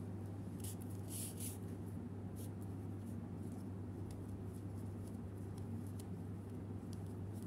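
Faint scratching and rustling of yarn and crochet fabric as a sewing needle pulls pink yarn through to stitch a crochet flower onto a crochet tube, with a small cluster of scratches about a second in. A steady low hum runs underneath.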